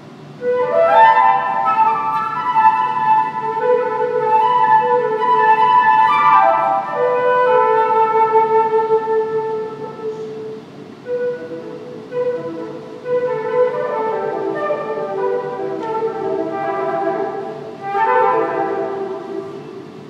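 Solo concert flute playing a slow passage of held notes broken by quick sweeping runs, the first about a second in and others around six, thirteen and eighteen seconds in.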